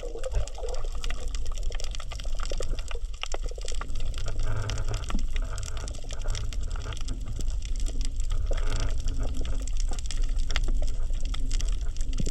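Underwater coral reef ambience: a dense, constant crackle of tiny sharp clicks (the 'michi-michi' sound, said to be coral breathing) over a steady low rumble of the water.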